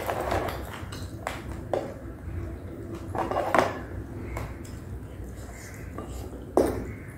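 Cooked crab shell cracking and crackling as it is pulled apart by hand, with a few small snaps. Two sharper cracks come about three and a half seconds in and near the end.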